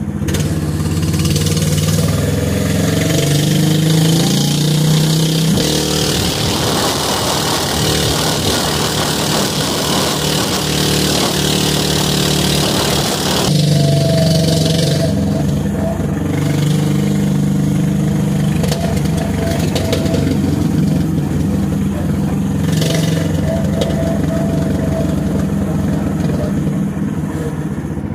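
Duromax 440 cc single-cylinder engine in a small roadster, running under throttle as the car drives. Its pitch rises and falls with the throttle. From about six to thirteen seconds a loud rushing noise lies over the engine.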